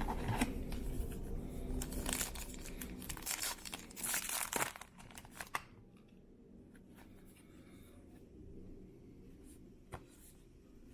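A baseball card pack wrapper being torn open and crinkled, in rustling bursts through the first five seconds or so, then quieter handling of the cards with a few soft clicks.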